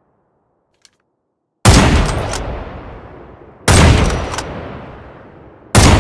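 Three Mosin-Nagant bolt-action rifle shots (7.62×54R), about two seconds apart. Each is a sharp report with a long fading tail.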